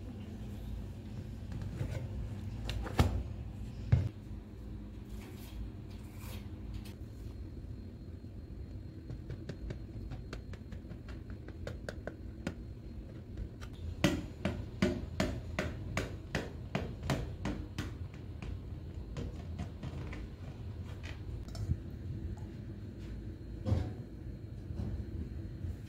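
Knocks and clinks of cookware being handled: a few separate knocks of a metal pot and tray, then a run of quick light taps of a knife against a glass dish as a cake is cut, and one more knock near the end, over a low steady room hum.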